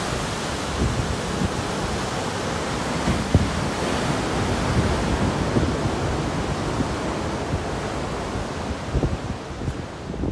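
Heavy surf breaking and churning against the foot of sea cliffs, a steady rush of waves, with wind buffeting the microphone in low gusts.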